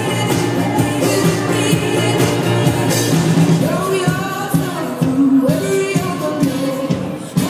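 Pop song with a singing voice over a drum beat.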